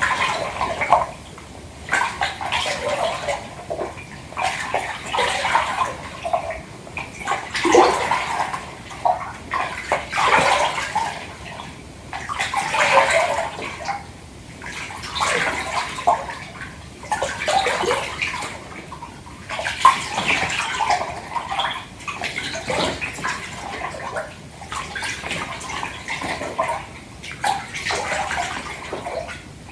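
Bath water sloshing in a filled tub as hands swish through it, in uneven swells of splashing that come every second or two.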